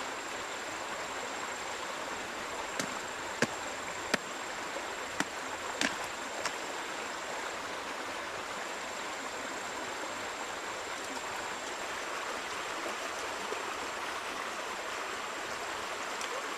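Shallow river running fast over rocks, a steady rush of water. About three to six and a half seconds in, a handful of short sharp clicks from hard objects knocked together as they are handled at the water's edge.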